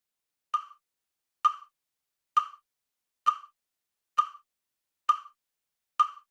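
Metronome-style click track counting in at a steady slow tempo: seven short, identical clicks a little under a second apart.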